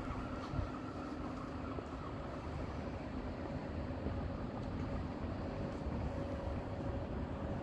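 Steady low rumble of distant city traffic, with a faint steady hum above it.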